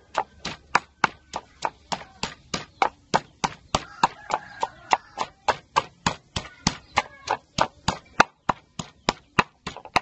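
Wooden pestle pounding chili and garlic into a spice paste in a mortar, a steady rhythm of dull strikes about three to four times a second.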